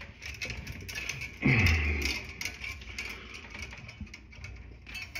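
Small irregular clicks and taps of hand tools and wire being worked at an electrical box. A short low voice-like sound falls in pitch about a second and a half in.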